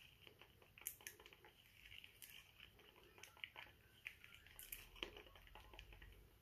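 Faint, irregular scraping and squelching of a wooden stir stick working a thick paint mix around a plastic cup, with soft clicks as the stick knocks the cup's sides.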